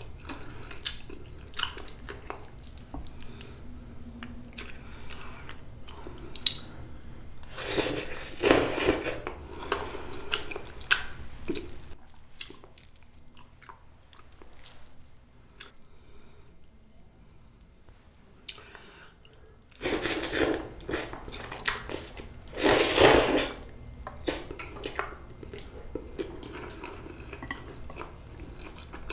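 Close-miked eating of saucy instant black-bean noodles: wet chewing and small mouth clicks throughout, with two long, loud slurps of noodles, about eight seconds in and again around twenty to twenty-three seconds in. Between the slurps the eating goes quieter for several seconds.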